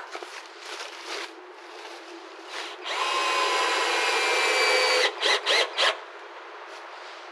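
Power drill running at steady speed for about two seconds, then three short trigger bursts in quick succession, with faint handling noise before it.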